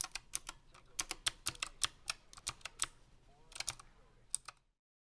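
Typing on a Razer Huntsman Mini keyboard's optical switches: a quick, irregular run of key clicks with a short pause about three seconds in, then a few more strokes before the sound cuts off completely.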